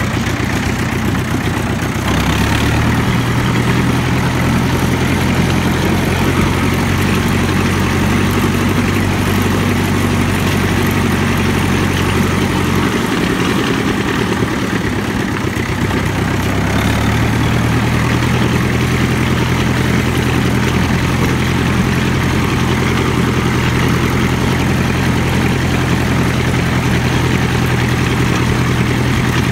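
International tractor engine running steadily as the tractor drives, with its note stepping up about two seconds in, dropping back a little before halfway and picking up again a few seconds later. A steady hiss of heavy rain lies under it.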